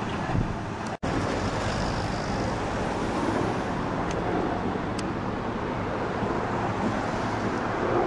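Steady outdoor engine rumble from heavy vehicles, with wind on the microphone. The sound drops out sharply for an instant about a second in.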